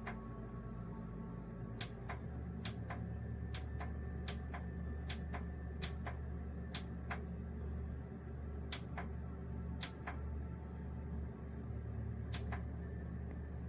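A long series of sharp, irregularly spaced clicks and taps, about twenty of them, over a steady low hum that grows louder about two seconds in.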